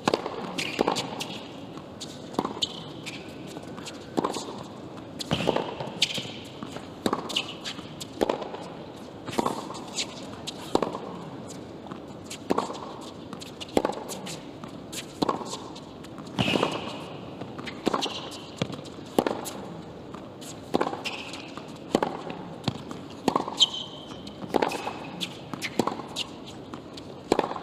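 A long tennis rally on a hard court: racquets striking the ball and the ball bouncing on the court, in a steady series of sharp hits about one a second over quiet crowd noise.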